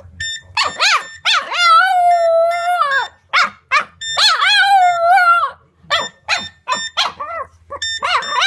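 Boston terrier howling along to the beeping of a cordless phone handset: short yips, then two long howls of about two seconds and just over one second, held at a steady pitch with slight wavers, then more short yips. Quick runs of short, even electronic beeps from the handset sound at the start and again near the end.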